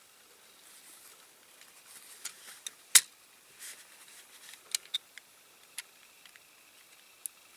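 Small clicks and taps of diecast model parts being handled and pressed together by hand, with one sharp click about three seconds in and light rustling between.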